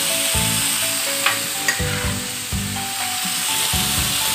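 Chopped okra, onion and tomato sizzling in oil in a steel pot while a wooden spatula stirs them, with a couple of light knocks of the spatula about a second and a half in.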